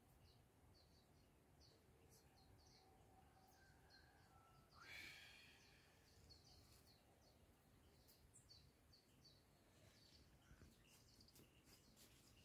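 Near silence: faint, short, high chirps of small birds repeating irregularly, with one brief soft noise about five seconds in.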